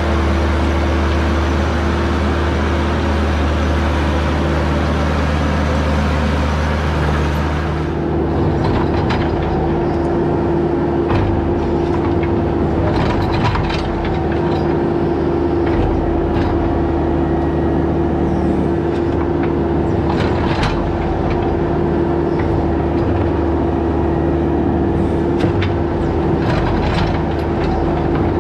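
Mini excavator's diesel engine running steadily under a constant tone. About eight seconds in the high hiss drops away and irregular metal clanks and knocks from the working machine come through.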